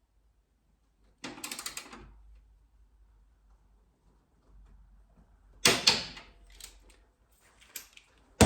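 Ratcheting torque wrench tightening a footpeg mounting bolt: a short burst of quick ratchet clicks about a second in, a louder burst of clicks near the middle, and a few lighter clicks near the end.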